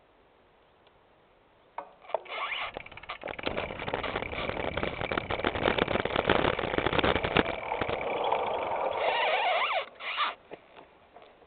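Bicycle rattling and crunching over a rough gravel and dirt woodland trail: a dense clatter of bumps and knocks that starts about two seconds in and stops suddenly near the end, leaving a few scattered knocks.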